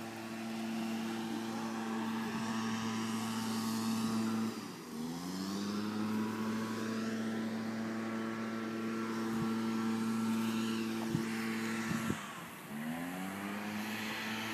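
An engine running at a steady pitch. About a third of the way in, and again near the end, it briefly drops off and then climbs back up in pitch.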